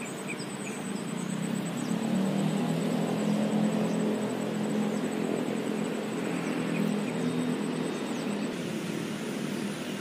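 A motor vehicle's engine running steadily as it passes, swelling about two seconds in and then slowly fading, with faint high chirps above it.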